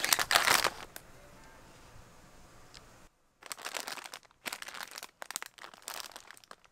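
Plastic packaging crinkling as hands handle wrapped dog treats and a plush toy in its clear plastic bag. It comes in a loud burst at the start and again in a run of shorter crackles through the second half.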